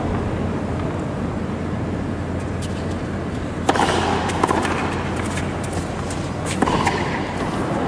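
Tennis ball struck by rackets in a rally on a hard court. A serve comes a little past halfway, the return follows under a second later, and another shot comes near the end, all over a steady arena background noise.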